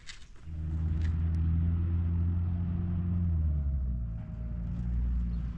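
A motor vehicle's engine comes in suddenly about half a second in and runs steadily with a low hum. Its pitch drops a little past halfway through.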